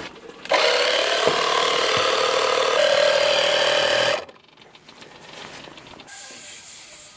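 Portable tire inflator's small electric air compressor running steadily for about four seconds, its pitch stepping up slightly partway through, then shutting off. A quieter hiss follows near the end.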